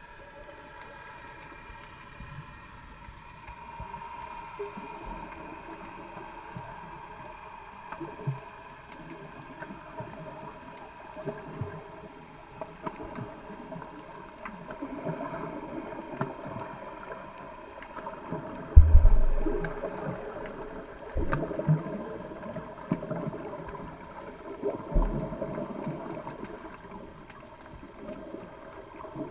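Muffled underwater ambience heard through a GoPro's waterproof housing: a steady watery hiss and gurgle with scattered small clicks. A heavy low thump comes about two-thirds of the way through, and a smaller one follows a few seconds later.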